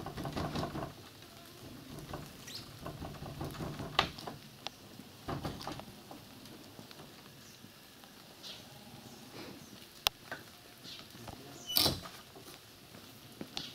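Scattered rustling and scraping, with sharp knocks about four seconds in, at ten seconds, and a louder one near twelve seconds.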